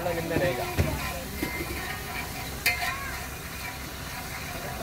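Pav bhaji sizzling and frying on a flat iron tawa while it is stirred, with one sharp metal clink nearly three seconds in.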